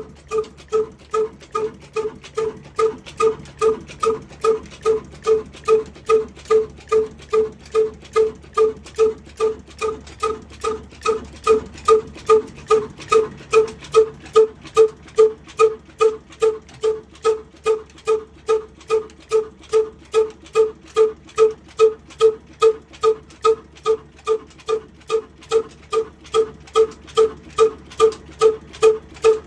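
Big old single-cylinder horizontal diesel engine with a heavy flywheel running at a slow, steady beat of about two sharp exhaust pulses a second, each pulse with a short ringing note.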